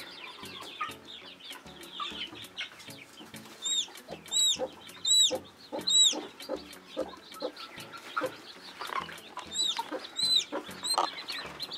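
Chicks peeping: a run of about five short, high peeps starting about three and a half seconds in, and four more near the end, over a hen's low, repeated clucking.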